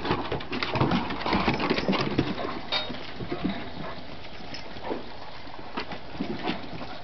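Several pit bulls' paws and claws clattering in quick, dense footfalls on a hard floor as they rush past. After about three seconds they thin to a few scattered taps.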